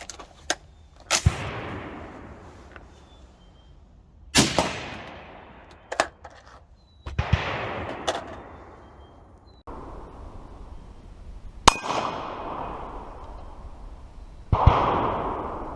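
About five AR-15 rifle shots, 75-grain full metal jacket 5.56, a few seconds apart, each followed by a steel target clanging and ringing out.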